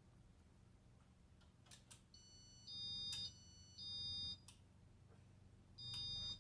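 Casablanca InteliTouch fan control beeping three times, short high electronic beeps about half a second long, as the fan is set to reverse and speed 1.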